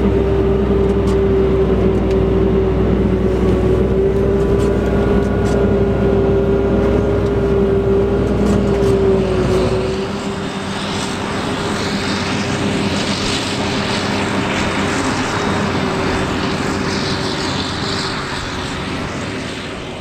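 Tractor running, heard from inside its cab: a steady engine hum with a low rumble. About halfway through the sound changes: the low rumble drops away, leaving a lighter, hissy whir.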